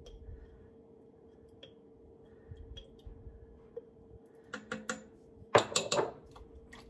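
A spoon tapping and scraping inside an upturned glass jar of marinara, knocking the sauce out into an Instant Pot: scattered light clicks, a few sharper taps about four and a half seconds in, and the loudest clatter a little later. A faint steady hum runs underneath.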